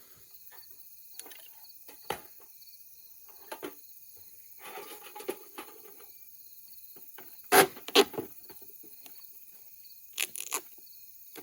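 Scattered clicks and knocks of hands working on a toaster oven's metal parts during a repair, loudest in a couple of sharp knocks just past the middle and two more near the end, over a steady high hiss.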